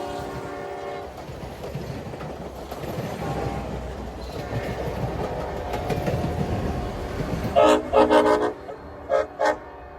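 Wheeling & Lake Erie locomotive 1776's horn finishing a long chord about a second in, then the train rolling past with wheels clattering on the rail joints. Near the end come a quick run of short horn toots and two more brief toots.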